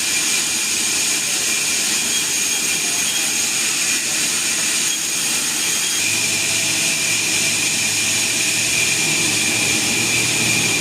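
Sawmill machinery running steadily with a high whine, a lower hum joining about six seconds in.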